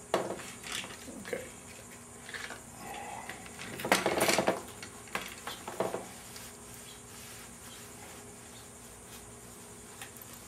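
Light clinks and knocks of small parts and containers being handled, with a short rustle about four seconds in, then only a faint steady hum.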